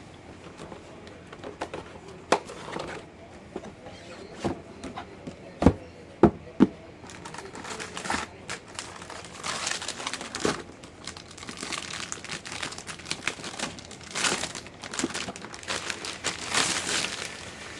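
Motherboard packaging being handled: a few sharp knocks in the first seven seconds, then continuous crinkling of plastic wrapping.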